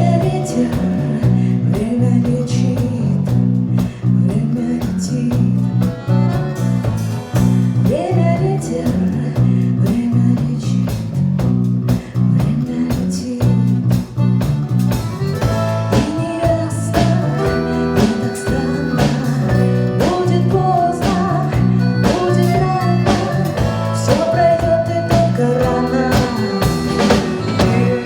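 Live band music with guitar, bass guitar, drum kit and bayan (button accordion) playing together at a steady beat, some notes bending in pitch.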